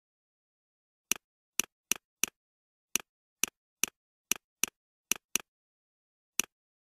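Computer mouse clicking about a dozen times at uneven intervals, each click a sharp press followed straight away by a softer release, with dead silence between.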